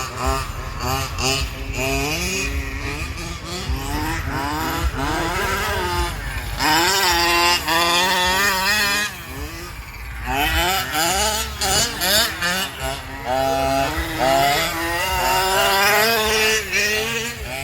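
Small gas-powered RC car engines revving and running around, their high engine notes rising and falling over one another. They are loudest for a few seconds about a third of the way in and through most of the second half.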